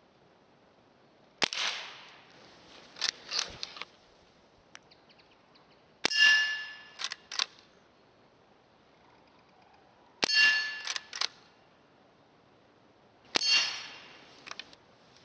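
Walther lever-action CO2 air rifle fired four times, about four seconds apart. Each sharp crack is followed about a second later by two quick clicks as the lever is worked down and up, and two of the shots carry a short metallic ring.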